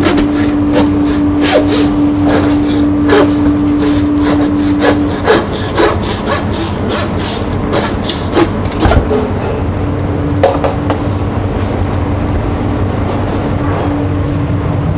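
Hand meat saw cutting through a lamb carcass's bone in back-and-forth strokes, about two a second, for most of the first half; after that only a few scattered strokes. A steady hum runs underneath.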